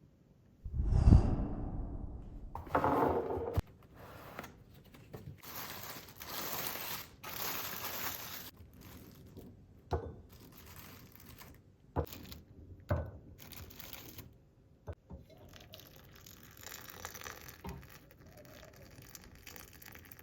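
Kitchen handling sounds during food preparation: stretches of rustling and crinkling, like packaging or paper being handled, broken by a few short sharp knocks.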